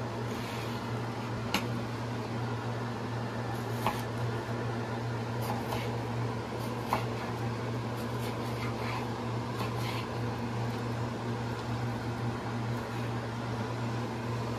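Steady mechanical hum of a fan or motor, with a few sharp clicks or knocks about one and a half, four and seven seconds in.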